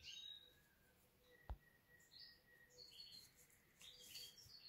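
Near silence, with faint, short bird chirps now and then and a single soft click about a second and a half in.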